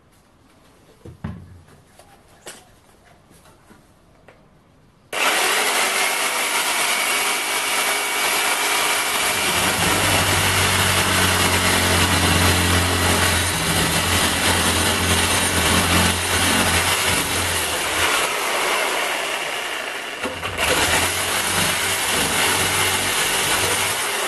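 A couple of squirts from a trigger spray bottle. Then, about five seconds in, an Ozito reciprocating saw starts abruptly and runs loud and steady, its blade cutting into a lubricated cast-aluminium alloy wheel hub, with a brief easing near the end.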